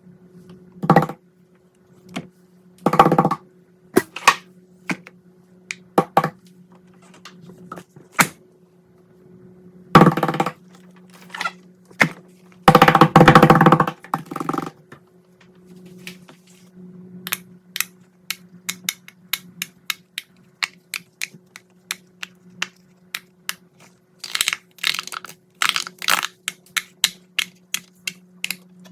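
Fidget toys being handled: a string of sharp clicks and pops, a louder rustling burst about halfway through, then a quick run of many clicks near the end.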